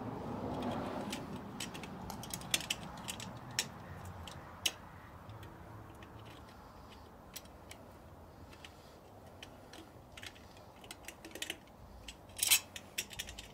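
Screwdriver working the Phillips screw out of a motorcycle's chrome headlight trim ring: scattered small metal clicks and ticks, with a quick run of louder clicks near the end.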